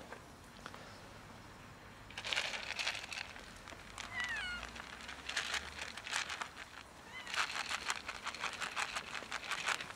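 A tabby-and-white cat gives one short, sliding meow about four seconds in while it stretches up begging for food held above it. Around it come louder spells of crinkly rustling.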